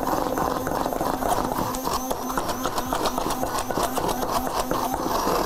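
Stick blender running in a glass bowl, its motor steady with a fast, even churning rhythm as it grinds chocolate cookies and evaporated milk into a smooth cake batter.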